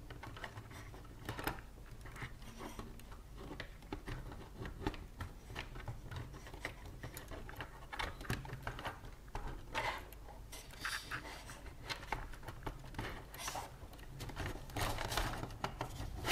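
Plastic front frame of an Audi TT Mk2 instrument cluster being pressed back onto the cluster housing by hand: scattered light plastic clicks, snaps and rubbing at an irregular pace.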